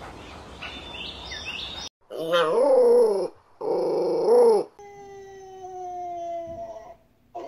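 Small-breed puppies whining and howling: faint squeaky whines, then two loud wavering howls, then one long, steady howl that sinks slightly in pitch.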